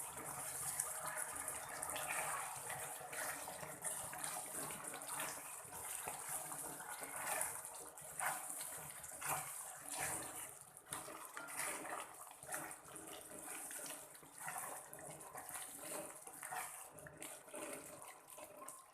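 Thickened chicken Manchurian gravy bubbling and sizzling in a pan on the stove, with a spatula stirring through it and knocking or scraping now and then.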